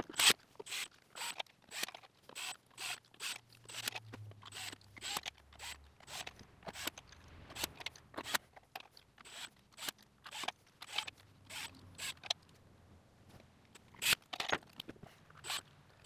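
A long run of short, sharp metallic clicks, irregular, about two or three a second, from hand tools working the fasteners of a timing chain cover as they are run in loosely.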